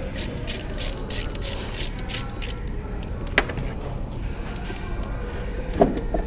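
Socket ratchet wrench clicking at about four clicks a second as it backs out a bolt, stopping after a couple of seconds, then one sharp click a little past halfway.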